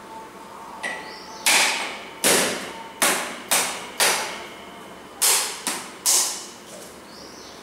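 A run of about eight sharp knocks, each dying away quickly, irregularly spaced over several seconds.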